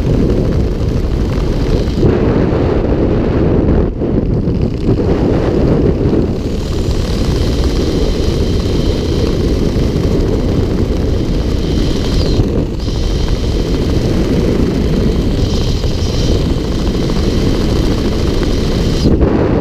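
Airflow of a skydiver's descent buffeting a GoPro's microphone: a loud, steady rush of wind noise.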